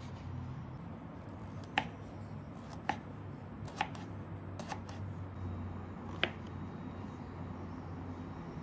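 A knife slicing king oyster and shiitake mushrooms on a bamboo cutting board: about five sharp knocks of the blade on the board, roughly a second apart, over a low steady hum.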